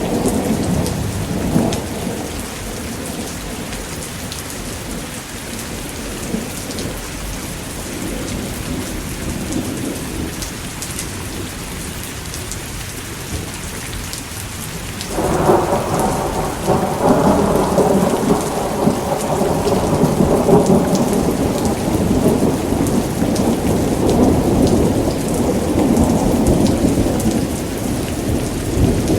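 Thunderstorm: steady rain pouring, with thunder. A rumble dies away in the first couple of seconds, then a loud thunderclap breaks in suddenly about halfway through and rumbles on to the end.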